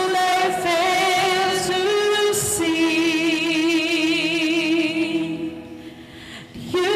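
A woman sings a slow worship song into a microphone, holding long notes with a strong vibrato. The voice fades out about six seconds in, and the next line starts just before the end.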